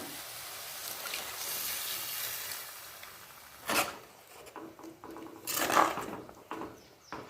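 Water poured into a hot pan of fried masala and dry fish, with a hiss for the first few seconds, then a few short clatters of a vessel or utensil against the pan.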